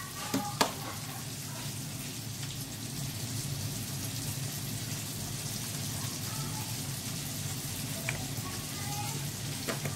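Steady low hiss and hum of a gas stove burner heating an earthenware clay pot while coconut oil is poured in, with a couple of light knocks about half a second in.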